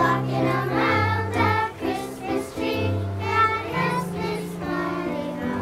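Music: a choir singing with instrumental accompaniment, several voices over a held bass line.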